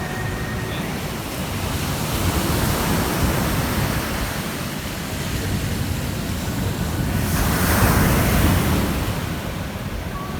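Ocean surf washing onto a beach, with one wave breaking louder about three-quarters of the way through.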